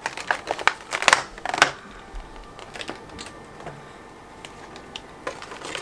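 Clear plastic bag crinkling and crackling in the hands as it is pulled off a figurine: a quick run of sharp crackles in the first second and a half, then scattered lighter ones.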